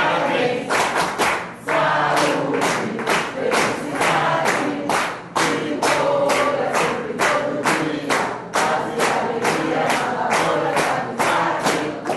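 A group of people singing together while clapping their hands in a steady rhythm.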